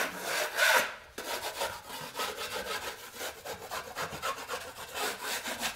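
Steel drywall knife scraping over not-yet-dry concrete-fill compound on a plaster wall in quick repeated strokes, knocking down the high spots. The loudest scrape comes about half a second in.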